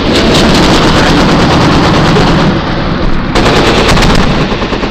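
Sustained automatic gunfire, a long rapid run of shots. It eases briefly about two and a half seconds in, then another burst follows.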